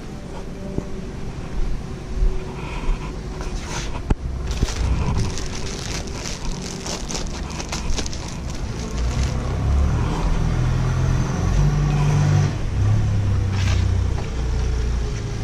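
Clinks, knocks and rattles of tools and small hydraulic fittings being handled in a workshop, clustered in the first half, over a steady low rumble that grows louder in the second half.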